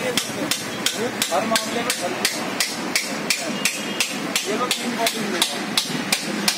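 Steady, evenly paced hammer blows on metal, about three a second, at a motorcycle's rear wheel hub during a tyre puncture repair.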